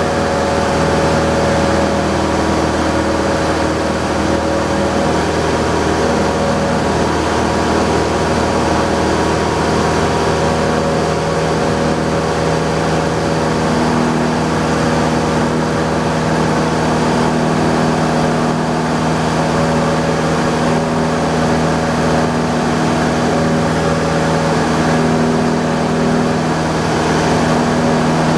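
Cessna Skyhawk's piston engine and propeller running steadily, heard inside the cabin as a loud, even drone.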